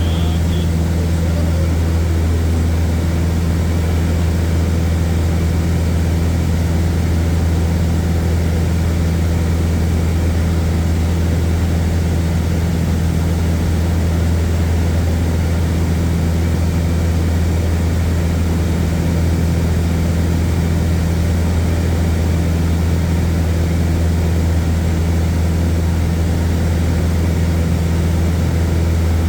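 Propeller airplane's engine running steadily in flight: a constant, unchanging low drone.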